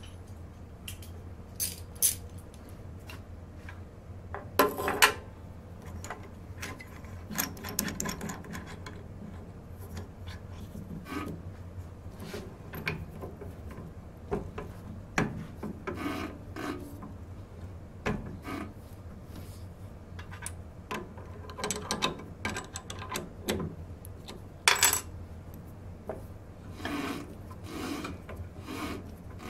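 Irregular metallic clicks, knocks and scrapes of hands working on a drill press chuck and its machine vise, with the loudest clanks about five seconds in and near the end, over a steady low hum.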